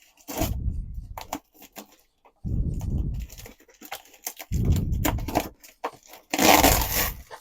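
Packing tape being peeled and cut off a cardboard box: four rough strokes about two seconds apart, the last the loudest.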